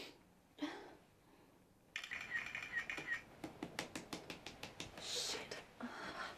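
A brief sound near the start, then a smartphone camera's shutter clicking over and over in quick succession as a run of selfies is taken.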